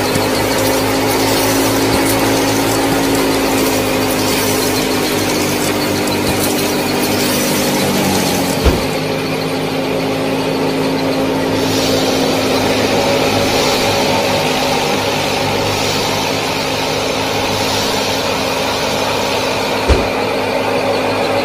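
Small motors of a DIY model tractor and its miniature thresher running steadily with a hum, and two brief sharp thumps, about nine and twenty seconds in.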